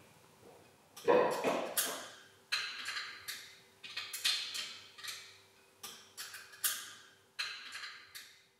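A series of sharp knocks at irregular spacing, about one a second, each dying away quickly, with a faint steady hum beneath from about two seconds in.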